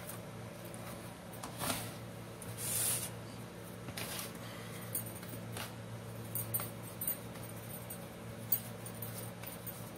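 Hands shaping a ball of soft paratha dough and dusting it in dry flour, making soft rustles, scuffs and a few light taps over a steady low hum.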